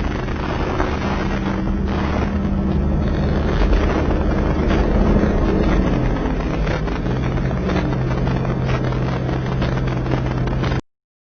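Bulldozer's diesel engine running under load, with occasional knocks; its note drops to a lower, steadier pitch about six to seven seconds in, and the sound cuts off suddenly near the end.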